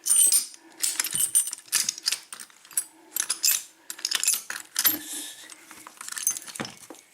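Metal keys jingling and clinking in a run of short rattles as they are handled and sorted through.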